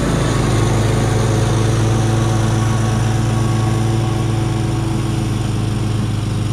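Gravely 52-inch residential zero-turn mower running steadily while mowing tall grass, a constant engine hum that grows slightly fainter in the second half as the mower moves away.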